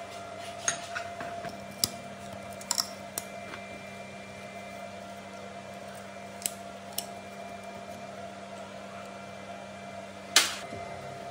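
Hand tools clicking and clinking against the rusty steel frame and bracket of an old electric water pump motor as a wrench and then locking pliers grip and work a metal strap, a few scattered taps in the first seconds. A louder metallic clank near the end, over a steady faint hum.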